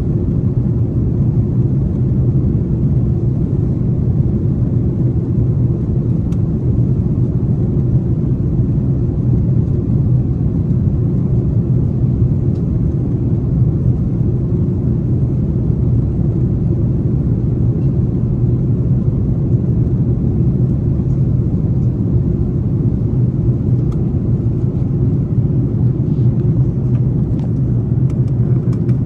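Steady low drone inside a jet airliner's cabin in flight: engine and airflow noise heard from a window seat over the wing.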